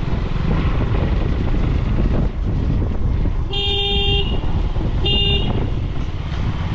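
KTM motorcycle engine running steadily while riding, with two horn toots about three and a half and five seconds in, the second shorter.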